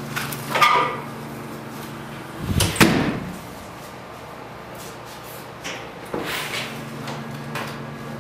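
A door being pushed open and swinging shut, closing with a thud about two and a half seconds in, after a shorter creak or knock just before one second. A low steady hum runs underneath.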